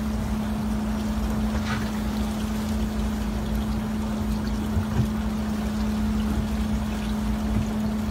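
Fishing boat's engine running with a steady hum, over a low rush of wind and water.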